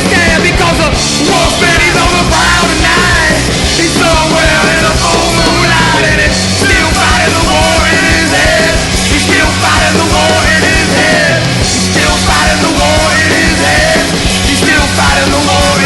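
Loud, fast rock music in a punk style, with a full band and sung or shouted vocals throughout.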